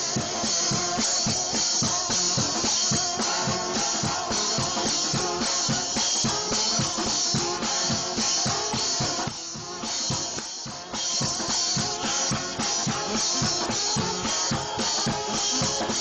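Gospel shout band music: a brass ensemble playing a hymn tune over a drum kit keeping a driving beat, with a brief drop in fullness about two-thirds of the way through.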